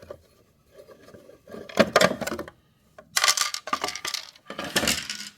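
Metal parts of a DeWalt DW735 planer clinking and clattering in three irregular bursts as it is handled during disassembly.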